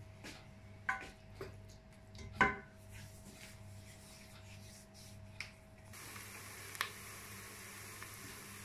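Wooden spoon stirring sliced onions in oil in a stainless-steel pressure cooker, knocking and scraping against the pot a few times, the loudest knock about two and a half seconds in. From about six seconds in, the onions sizzle steadily and faintly as they brown.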